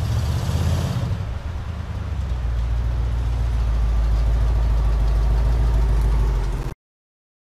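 Ford F-250 pickup driving, its engine running steadily; the sound cuts off suddenly near the end.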